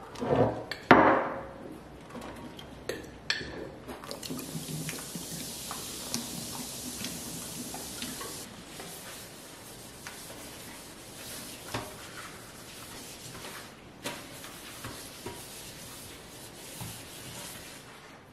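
Cleaning a stainless steel kitchen sink. Baking soda is shaken out of a container with a few sharp knocks at the start. A steady hiss follows for about four seconds, then rubbing and scrubbing against the metal basin with scattered light clicks.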